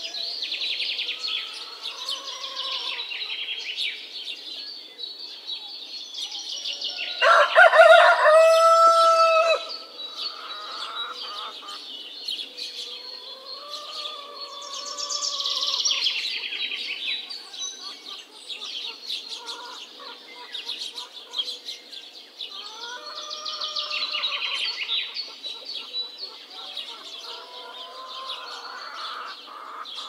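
A rooster crows once, about seven seconds in, for a little over two seconds; it is the loudest sound. Under it, budgerigars chatter and chirp continuously, and hens give occasional softer calls.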